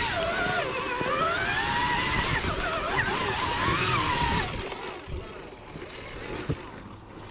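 Trail motorbike's motor rising and falling in pitch as it is ridden over the rough trail, then easing off about four and a half seconds in to a quieter low hum.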